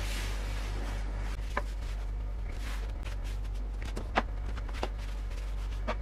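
Cloth wiping down white laminated shelf boards: soft swishing strokes, with about four light clicks and knocks as the boards are handled, over a steady low hum.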